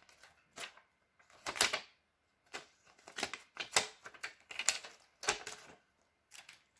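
A thin plastic screen protector and its packaging being handled: irregular crinkles and sharp clicks in short clusters, about eight in all.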